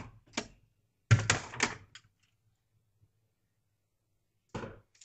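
A few short knocks and clattering handling noises: a cluster of several quick knocks about a second in, then two more near the end, with quiet between.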